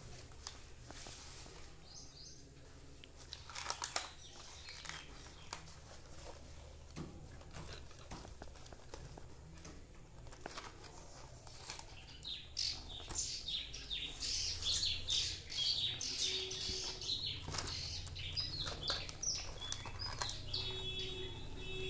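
Small birds chirping, many quick high chirps that grow busier from about halfway on, with a few clicks and rustles of a doll's plastic packaging being handled.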